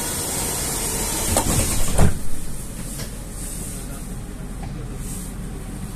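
Rusich metro car doors sliding shut with a loud hiss, ending in a sharp knock about two seconds in. Then the standing car gives a low, steady rumble.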